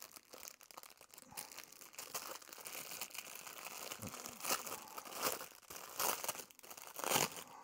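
Clear plastic packaging bag crinkling as it is worked open and pulled off a collapsible silicone bowl, with several louder crackles in the second half.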